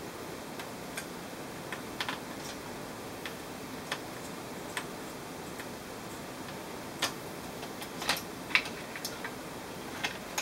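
Scattered light clicks and ticks of a small screwdriver and loosened screws on the metal heatsink and fan assembly of an HP G60 laptop as it is unscrewed from the motherboard. A cluster of louder clicks comes about eight seconds in, over a steady hiss.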